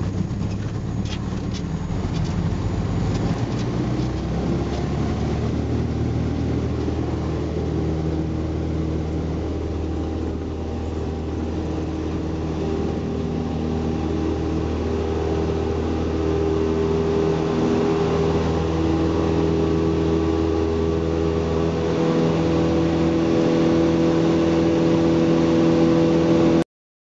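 A light aircraft's piston engine and propeller, heard from inside the cabin through the takeoff and climb, running steadily and growing louder. A few clicks come in the first seconds, and the sound cuts off suddenly just before the end.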